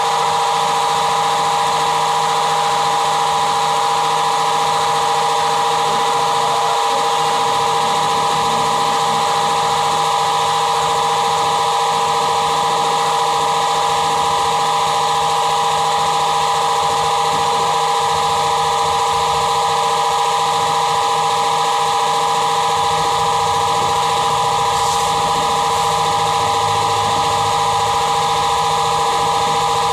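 Vertical milling machine running steadily, its cutter cutting into a steel workpiece, with a steady whine that holds the same pitch throughout.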